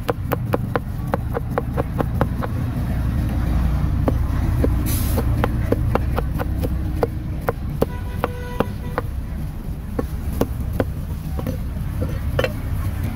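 Meat cleaver chopping grilled pig-head meat on a thick round wooden chopping block: a run of sharp knocks, quick at first and then more spaced, over a steady low rumble of street traffic.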